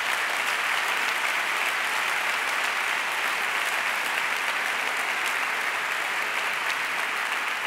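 Large audience applauding steadily: a dense, even clapping.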